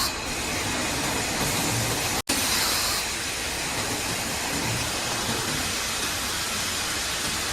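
Factory machinery of a fibre cement board production line running: a steady noisy hiss and rumble, broken by a momentary dropout about two seconds in.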